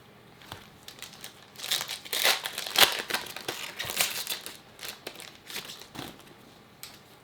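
Crinkling and rustling of a foil trading-card pack wrapper being handled and torn open, loudest in the first half.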